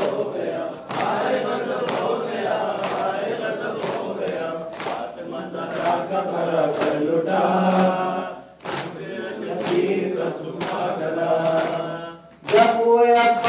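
A group of men chanting an Urdu noha (Shia lament) in unison, with steady hand strikes on the chest (matam) about twice a second, pausing briefly between lines.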